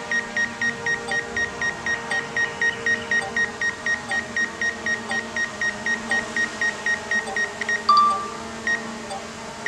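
Rapid, evenly spaced electronic beeping from the DJI Mavic Air 2's controller and flight app, about five short high beeps a second, while an automated Circle QuickShot is being recorded. The beeping stops near the end, where a short single tone and one last beep mark the shot finishing.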